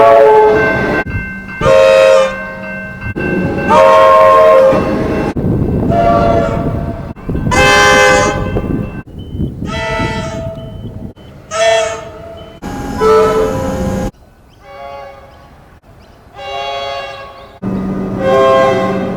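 A string of short horn blasts from Comeng electric trains, about ten in all, each a chord of several steady tones lasting around a second, over the rumble of the moving train. The sound changes abruptly several times where separate recordings are joined.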